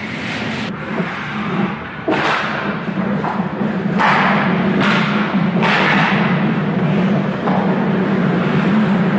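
Ice hockey play on the rink: skate blades scraping the ice in several sharp bursts from about two seconds in, with thuds of sticks, puck or boards, over a steady low hum.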